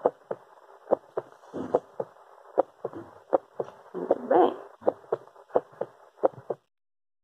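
Recorded heartbeat played back: repeated lub-dub double thumps in a steady, quick rhythm that stops suddenly about six and a half seconds in.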